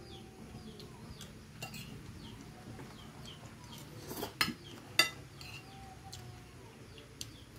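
Spoon and fork clinking and scraping against a plate during a meal, with a few sharp clinks about four to five seconds in.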